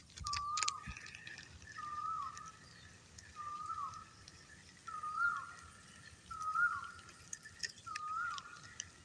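An unseen animal's whistled call repeated six times, about a second and a half apart. Each short note holds one pitch and then drops sharply at the end.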